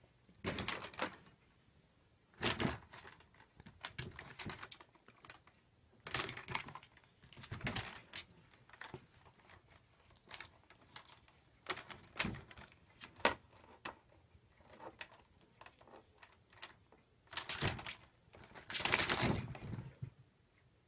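Square shelf-divider panels leaned against a cat fence clattering and knocking as kittens bat at and climb on them. Irregular clicks and taps with bursts of rapid rattling, the longest and loudest about two seconds from the end.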